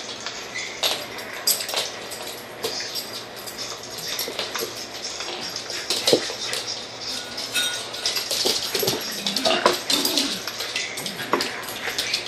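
A miniature schnauzer and a standard schnauzer play-wrestling: growls and whines amid scuffling and many sharp clicks of claws on a hard laminate floor.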